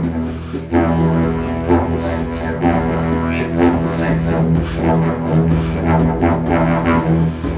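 Didgeridoo playing a steady low drone with rhythmic pulsing accents in its overtones, a couple of pulses a second. The drone dips briefly a little under a second in.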